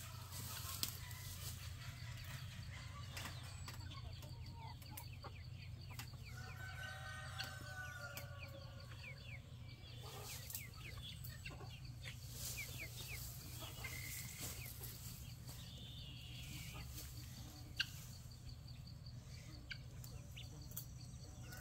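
Faint clucking of chickens in a coop, a few soft calls bunched together about a third of the way in, with scattered clicks and rustling from weeds being cut and handled.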